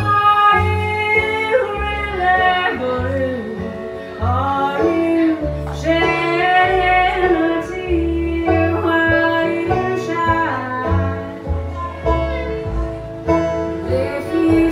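A woman singing with a live band: strummed acoustic guitar and an upright bass playing a steady line of low notes underneath her voice.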